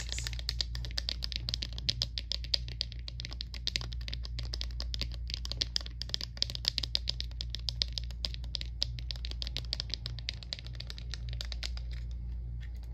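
Fingernails tapping fast on heart-shaped glitter plastic sunglasses, a dense run of sharp clicks like typing that stops shortly before the end.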